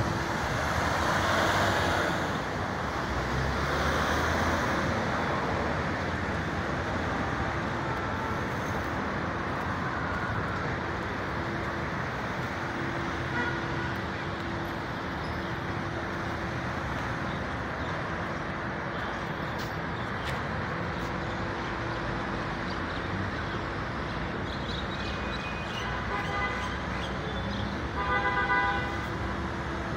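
Street traffic: cars driving past, with a swell of passing traffic in the first few seconds. Short car-horn toots sound near the end.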